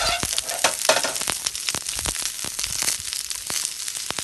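Food frying in a hot pan, sizzling with a steady hiss and many sharp crackles.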